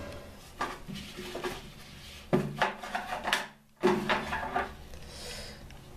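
Knocks and clatter of a bathroom cabinet being opened and things handled inside it, a handful of sudden sounds spread over a few seconds.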